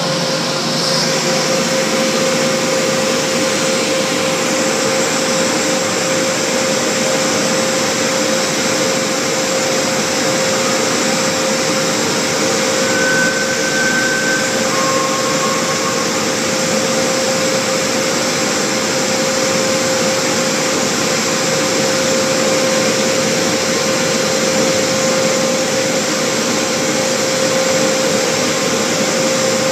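Cleaver-Brooks FLEX boiler burner's combustion-air blower running steadily during the pre-ignition purge, with no flame yet lit: a steady rush of air with a constant hum.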